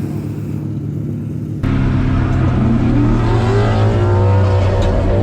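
Car engine running steadily. About a second and a half in, an abrupt cut to a louder car engine revving, its pitch rising and then holding.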